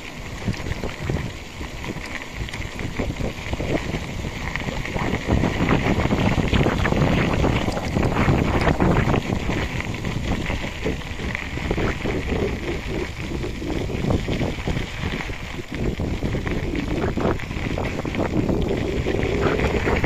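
Wind buffeting the microphone of a camera riding on a moving bicycle: a gusting rush that grows louder after about four seconds.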